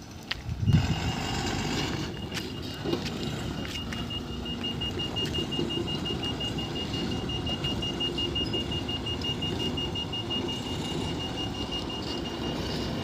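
Heavy machinery engine running steadily under a high, rapid, evenly pulsing beep like a reversing alarm, which starts about a second in and keeps going. A louder, fuller blast sounds briefly with it at the start.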